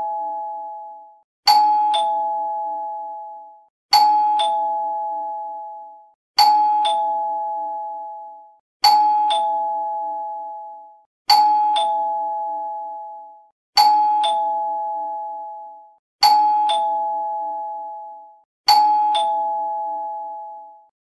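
Two-tone "ding-dong" doorbell chime, rung over and over, about every two and a half seconds. Each ring strikes a higher note, then a lower one, and both ring out and fade before the next.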